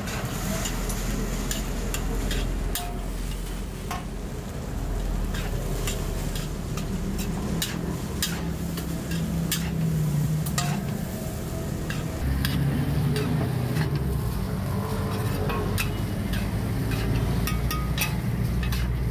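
A metal spatula stirring and scraping a big batch of seafood fried rice in a wok, striking the pan with irregular sharp clinks over a steady frying sizzle. A low rumble runs underneath.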